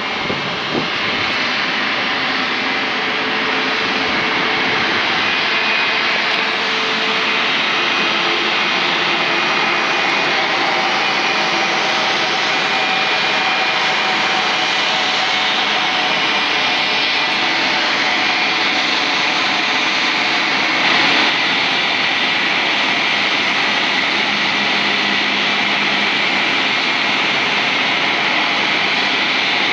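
Embraer E190-E2 airliner's Pratt & Whitney PW1900G geared turbofan engines running at taxi power as the jet taxies past: a steady, loud rush with a thin high whine.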